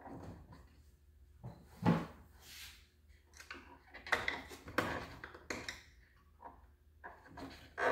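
Hands working clear silicone water tubing inside a wooden RC boat hull: scattered short knocks, rubs and rustles at irregular intervals, the loudest about two seconds in.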